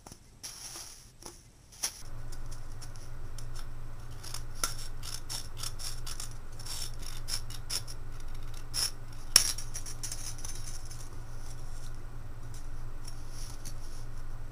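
Thin aluminium soda-can halves being handled and worked by hand, one rolled inside the other to stretch its rim and then trimmed with scissors: scattered light metallic clicks, crinkles and snips. A steady low hum comes in about two seconds in.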